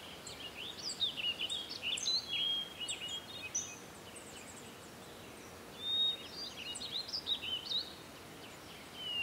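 Small birds chirping and twittering in quick, high-pitched calls, in two bouts with a pause of about two seconds between them, over a faint steady outdoor hiss.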